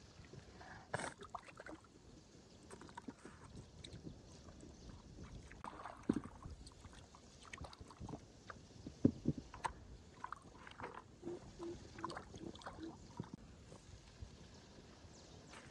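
Faint, irregular water splashes and small knocks, as of hands or a paddle working in shallow pond water, loudest about six and nine seconds in.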